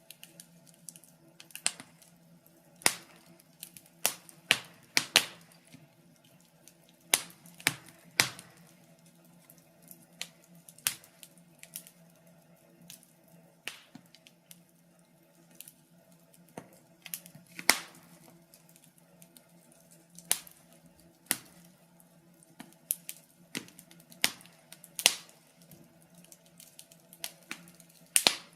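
Wood fire crackling in a fireplace: irregular sharp pops and snaps, roughly one a second, some louder than others, over a faint steady hum.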